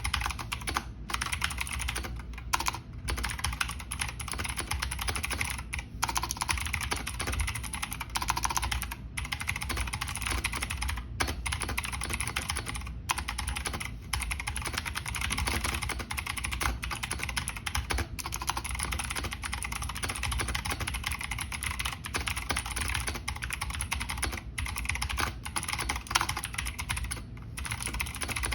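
Continuous fast typing on a Razer BlackWidow V3 Mini mechanical keyboard with clicky Razer Green switches: a dense run of key clicks with a few brief pauses.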